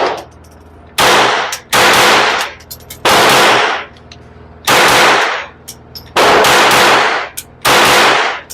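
Suppressed Taurus TX22 .22 LR pistol firing six shots at an uneven pace, each sharp report followed by about half a second of echo dying away.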